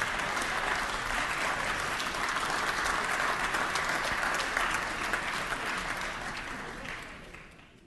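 A crowd applauding steadily, a dense patter of many hands clapping that fades out near the end.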